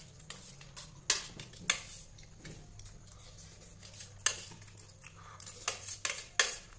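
Spoons clinking and scraping against a stainless steel plate while noodles are scooped up and eaten, in irregular sharp clinks.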